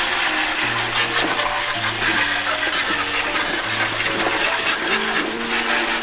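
Strong water spray hissing and splashing onto a plastic air-conditioner blower fan, rinsing dirt off it. Soft background music with held notes sits underneath.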